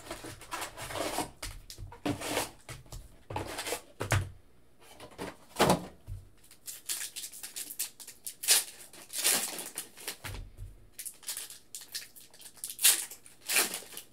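Foil wrappers of hockey card packs crinkling and tearing as they are ripped open by hand, in a run of irregular crackly rustles.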